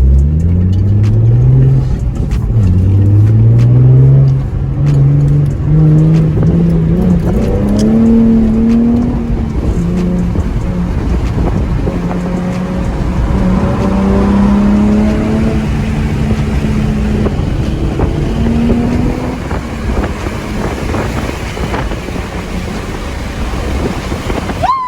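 Nissan 350Z's V6 engine accelerating hard through the gears: the pitch climbs, drops at each upshift and climbs again several times. After that it settles to a steady cruise.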